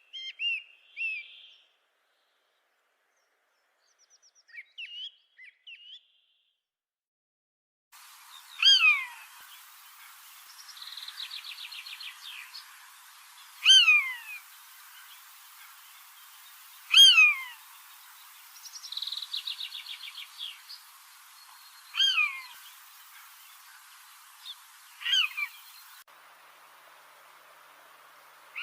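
Bird calls: loud whistled notes that sweep steeply downward, repeated five times a few seconds apart, with two dry rattling trills between them and a few short chirps at the start.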